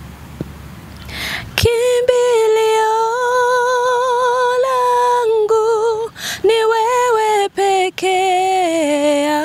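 A woman sings a Swahili worship song unaccompanied into a microphone, starting about a second and a half in. She holds long notes with a wavering vibrato, takes short breaths between phrases, and the melody steps down near the end.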